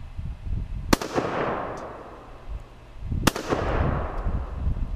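Two rifle shots from a Russian Tula SKS firing 7.62x39 mm hollow-point rounds, about two and a half seconds apart, each followed by a long fading echo. The rounds fire cleanly with no hang fire or squib load. Wind rumbles on the microphone underneath.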